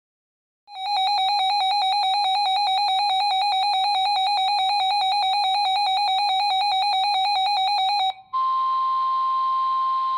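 Weather radio alert: a rapidly pulsing electronic alarm beep that starts about a second in and lasts about seven seconds, then after a short break a single steady NOAA Weather Radio warning tone, signalling an incoming severe thunderstorm warning.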